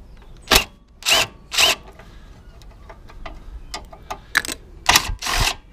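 Cordless power gun on a long extension bar, run in several short bursts to undo the bolts of a lawnmower engine's pull-cord starter cover.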